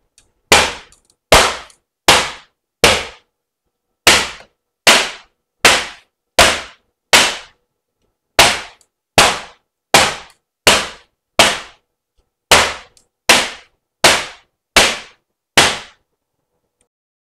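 A baking sheet of freshly piped macaron shells rapped hard on a stone countertop: loud sharp bangs, each with a short ring, about one every three-quarters of a second in runs of four or five as one tray after another is banged, stopping near the end. Rapping the trays knocks the air bubbles out of the shells before they dry.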